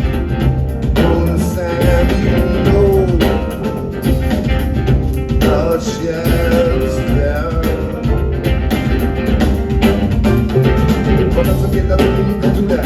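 Live band playing a song, loud and steady, with drums and bass keeping a groove under wavering melodic lines.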